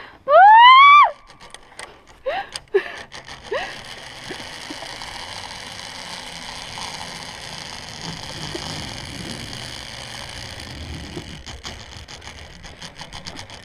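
A person's loud rising yell as they launch off the platform, a few short yelps, then a zip wire trolley running steadily along the steel cable with an even whirring hiss for about nine seconds.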